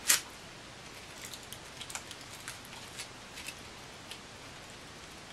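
Hard lollipop candy being sucked, with small scattered clicks of the candy against teeth over a low steady hiss. One sharper sound comes just after the start.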